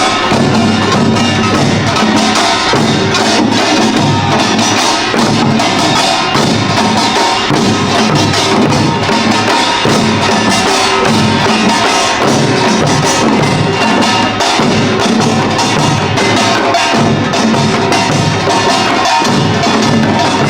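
Korean pungmul percussion ensemble playing Imsil Pilbong nongak: small kkwaenggwari gongs clanging rapidly over janggu hourglass drums and buk drums, in a dense, continuous, loud beat.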